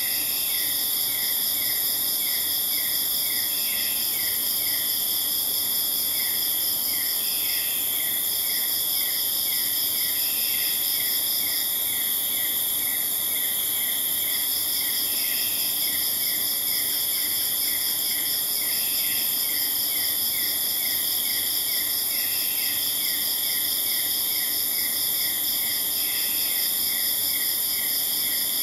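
Chorus of rainforest insects: several high-pitched trills layered together, with a lower chirp repeating about three times a second.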